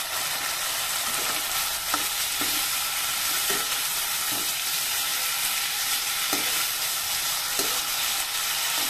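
Tomato chunks, cashews, green chillies and coriander sizzling in hot oil in a non-stick kadhai, a steady frying hiss. A perforated steel spoon stirs them, scraping and knocking against the pan now and then.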